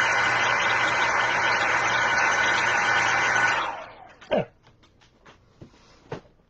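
Handheld hot-air blower running steadily with a low hum, drying fresh paint to a dull finish. It is switched off about three and a half seconds in and winds down, followed by a few light clicks.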